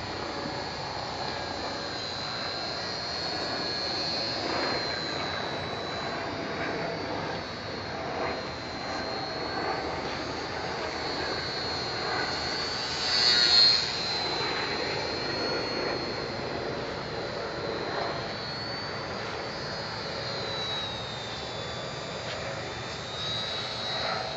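ParkZone Ultra Micro Pole Cat RC plane in flight, its small electric motor and propeller giving a high whine whose pitch drifts up and down as it circles, loudest as it passes close about 13 seconds in.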